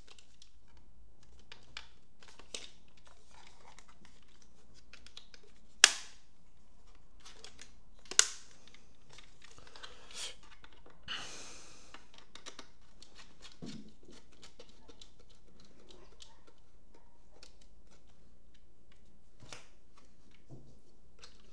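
Hands handling FPV goggles and fitting a screw-on antenna: scattered small clicks and taps, two sharp clicks about six and eight seconds in, and a brief rustle around eleven seconds.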